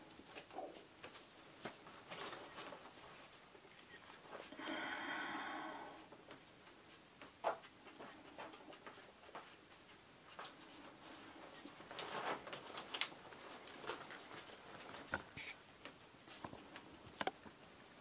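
Faint, scattered clicks and light rustles of the thin split-wood feathers of a whittled fan bird being handled and adjusted by hand, with a few sharper ticks. A short murmured voice sound about five seconds in.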